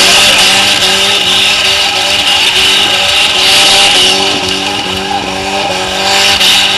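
Car engine held at high revs, the revs surging up and down in short steps, with the drive wheels spinning and scrubbing on loose dirt as the car spins donuts.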